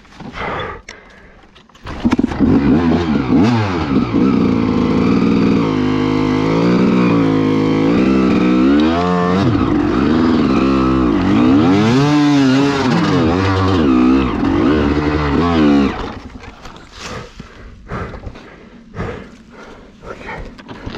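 Gas Gas EC 300 two-stroke single-cylinder dirt bike engine coming in suddenly about two seconds in and revving up and down over and over for about fourteen seconds, then dropping away. Scattered knocks and clatter before and after it.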